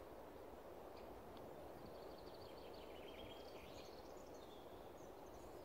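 Faint outdoor forest ambience: a steady low hiss with small birds chirping and trilling now and then, most through the middle.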